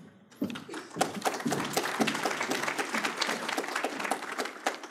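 Audience applauding, a dense patter of many hands clapping that swells about a second in and dies away near the end.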